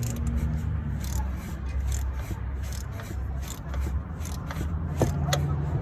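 Hand tools on metal: irregular clicks and scraping of a wrench working the 12 mm bolt on the serpentine belt tensioner, a few clicks a second, over a low steady rumble.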